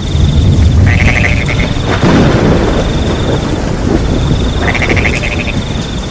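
Frogs calling in short pulsed croaks about a second in and again near five seconds, over a continuous high, rapidly pulsing cricket trill and the steady hiss of rain. A low rumble swells about two seconds in.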